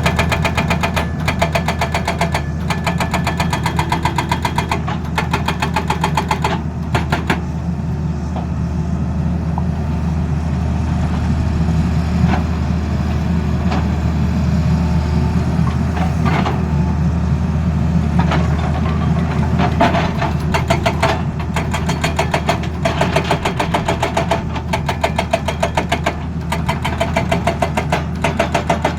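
Tata Hitachi Zaxis excavator's diesel engine running with a hydraulic breaker hammering in rapid, even strokes. The hammering comes in spells over the first several seconds and again over the last third, easing off in between while the engine drones on.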